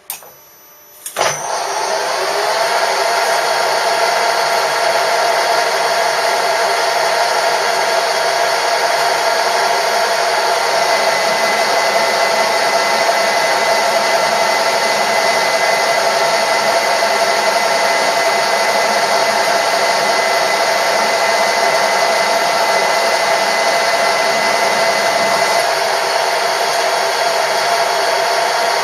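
A machine-tool motor switches on with a click just over a second in, then runs steadily at full speed with several steady tones. A higher steady tone joins for a long stretch in the middle.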